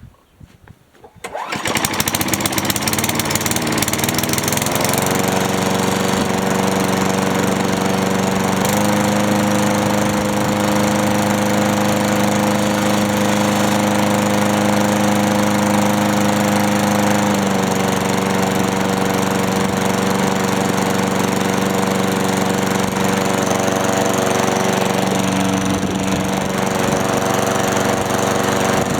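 Craftsman lawn mower's small gas engine starting about a second and a half in, then running steadily, its speed stepping up about nine seconds in and dropping back around seventeen seconds. It runs again after carburetor work, with the mixture screw and fast no-load speed still to be fine-tuned.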